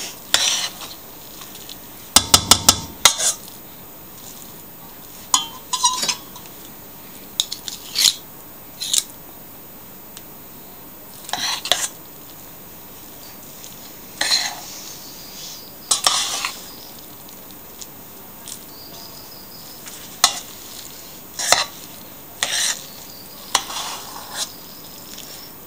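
A metal spoon scrapes and taps against the inside of a large stainless steel pot while folding cooked sushi rice with its vinegar syrup. The strokes are short and irregular, with a quick run of sharp taps about two seconds in.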